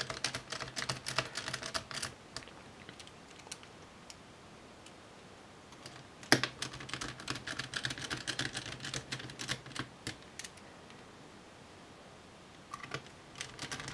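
Small Phillips PH0 precision screwdriver turning a laptop's heatsink screws down, a patter of light clicks in spells with quiet pauses between as it moves from screw to screw.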